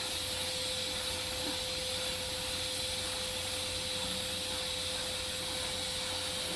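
TIG welding arc on a steel pipe joint, a steady hiss with a faint steady tone under it.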